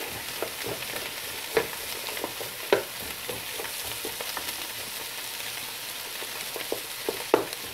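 Strips of beef and green bell pepper sizzling in a stone-coated non-stick frying pan, stirred with a wooden spatula that knocks and scrapes against the pan now and then. The peppers are being sautéed just long enough to soften.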